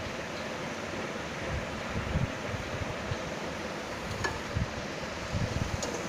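Ponnaganni greens frying in oil in a pan: a steady sizzling hiss with irregular low rumbles, and two light clicks about four and six seconds in.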